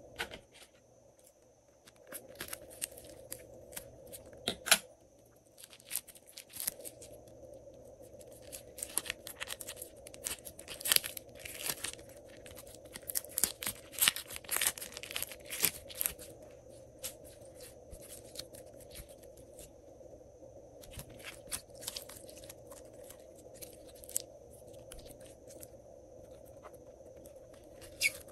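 Thin plastic piping bag filled with clear glitter slime crinkling and tearing as it is pulled open by hand. The sound is a run of sharp crackles and rips, busiest in the middle, then scattered crackles near the end.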